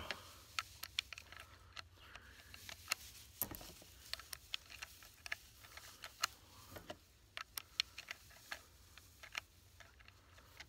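.38 Special cartridges being pushed one at a time through the loading gate into the tube magazine of a Marlin 1894 CSBL lever-action rifle. Faint, irregular small metallic clicks.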